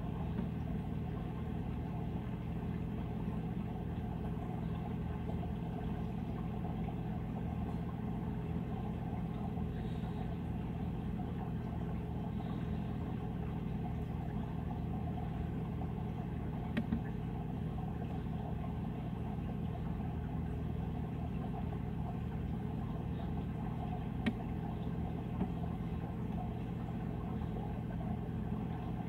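Steady low hum of running reef-aquarium equipment, with a few faint clicks as the LED controller's menu buttons are pressed.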